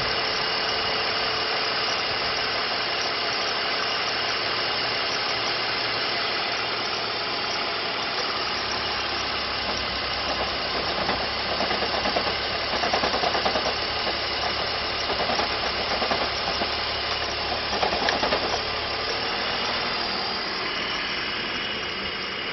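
BMW 330Ci E46's 3.0-litre inline-six running at idle, with the engine noise that shows when the oil filler cap is removed. About halfway through, the sound turns louder and uneven for several seconds, then settles back.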